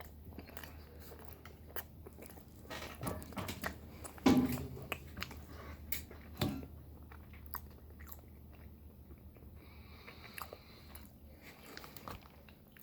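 A person chewing a mouthful of macaroni and cheese close to the microphone, with wet mouth smacks and small clicks, the loudest about four seconds in.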